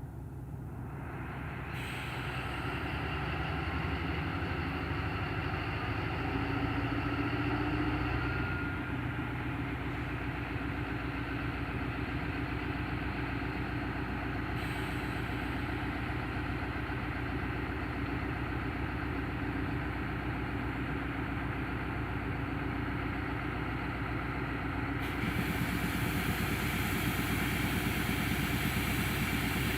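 A ZCU 20 diesel locomotive's engine running steadily, getting louder over the first few seconds as it pulls away. A hiss joins in near the end.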